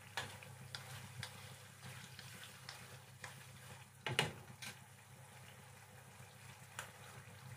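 Squid and mushrooms in Cajun sauce simmering in a pan, with faint steady bubbling and small scattered pops. A wooden spatula stirs through the sauce, with a louder knock against the pan about four seconds in.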